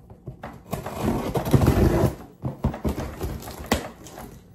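Big cardboard shipping box being opened with scissors and its packaging handled: a loud stretch of crinkling and rustling in the first half, then scattered knocks and scrapes with one sharp click.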